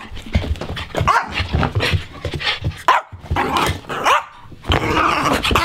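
A small dog barking over and over in short, high barks, with a brief pause about three seconds in.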